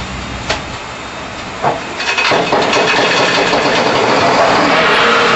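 Loaded side-dump railcar tipping on standard hydraulic cylinders during its dump. A couple of knocks in the first two seconds, then about two seconds in a loud steady rushing noise sets in and keeps on as the car tilts.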